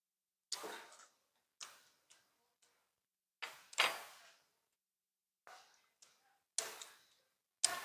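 Short clinks and knocks of tableware: spoons, bowls and a metal pot lid being handled at a meal table, about seven separate taps, the loudest a little before the middle.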